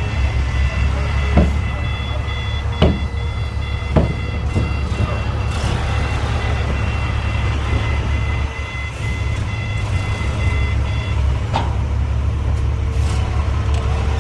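Heavy diesel earthmoving machinery running under a steady low rumble, with a rapidly pulsing back-up alarm beeping until about 11 s in. A few sharp metallic knocks come in the first four seconds.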